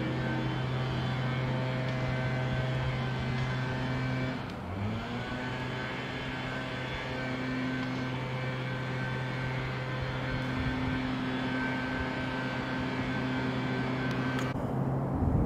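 A motor vehicle engine running with a steady droning hum. About four and a half seconds in it dips briefly and its pitch slides up, then it holds steady again.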